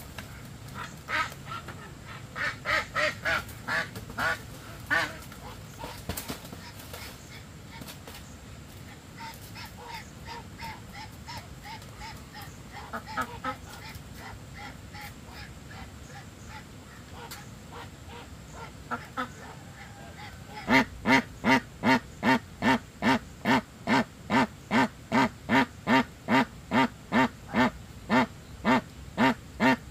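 Domestic ducks quacking: a few scattered quacks at first, then about two-thirds of the way through a loud, steady run of quacks, a little over two a second.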